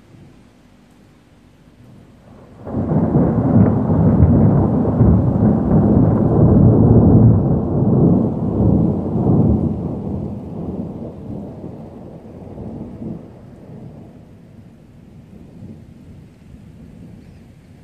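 Thunder: a sudden loud clap about three seconds in, rolling on as a long, deep rumble that slowly dies away.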